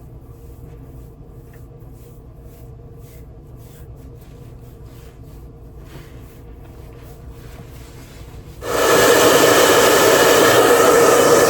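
Faint rubbing strokes over a low hum, then a hair dryer switches on abruptly near the end and runs loudly and steadily, blowing on the glued quick-weave hair.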